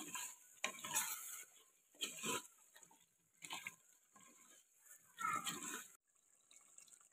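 Wooden spatula scraping and stirring chicken pieces in masala around an earthen clay handi pot, in about five separate strokes spread unevenly, as the chicken is dry-fried (bhuna).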